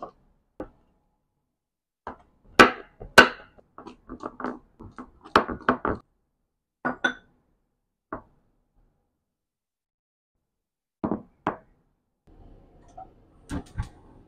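Stone pestle (ulekan) pounding raw shrimp in a terracotta mortar (cobek): uneven knocks, coming thickest in a run of blows between about two and six seconds in. Near the end, a few sharp clicks and a faint steady hiss as a gas burner under a frying pan is lit.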